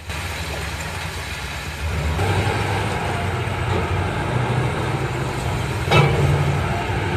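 Mining haul truck's diesel engine running steadily, growing louder about two seconds in, with one sharp knock near the end.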